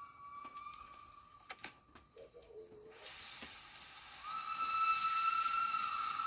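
A steam locomotive hisses steam from about three seconds in. From about four seconds in, a steam whistle blows one long steady note over the hiss.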